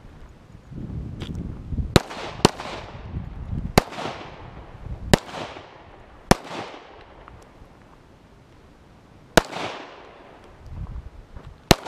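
Handgun fired seven times at an uneven pace, with two quick shots close together, then spaced shots and a longer pause before the last. Each shot rings on with an echo that fades over about a second.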